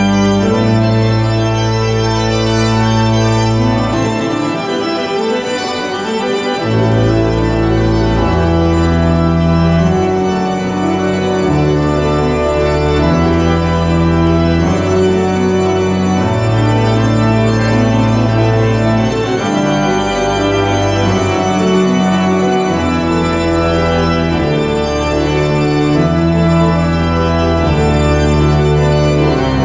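Cathedral pipe organ played loud and full: dense sustained chords over deep bass notes that change every second or two, the bass dropping out briefly about four seconds in.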